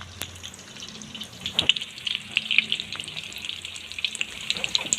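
Food frying in hot oil in a pan, a steady sizzle full of small crackling pops, with a couple of sharp utensil knocks.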